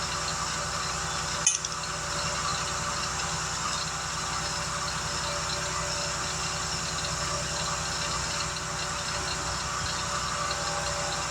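An engine idling steadily, with one sharp click or knock about a second and a half in.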